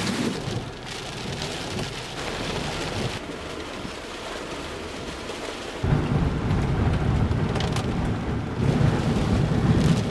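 Hurricane wind and driving rain hitting the microphone as a loud, rushing noise, broken by a few abrupt cuts. About six seconds in it changes to rain and wind battering a moving car, heard from inside the cabin with a heavy low rumble.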